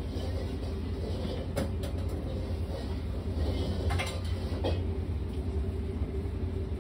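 Wooden rolling pin rolling out momo dough on a steel counter, with a few sharp knocks, over a steady low hum.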